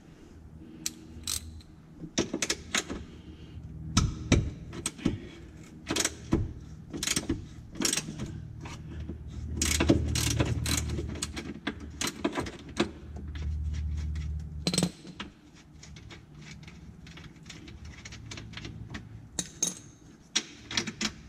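Hand tools and metal parts of a golf cart's rear suspension being handled, giving irregular metallic clicks and clinks, with low rumbling stretches near the middle.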